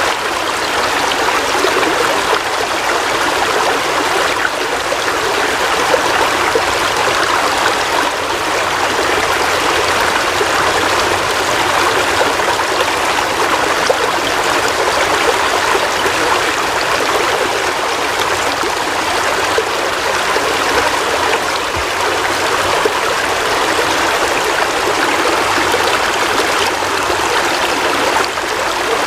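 Steady heavy rain, an even rushing hiss of falling and running water with no letup.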